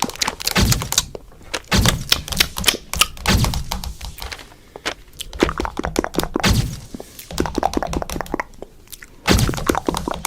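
Cartoon slapstick sound effects: a rapid clatter of sharp clicks and cracks over repeated heavy thuds, coming in bursts with brief lulls about halfway through and again near the end.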